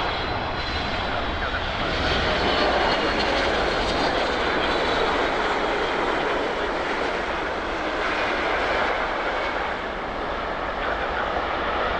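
Boeing 777-300ER's twin GE90 turbofan engines running loud and steady as it lands, with a high whine that slowly falls in pitch.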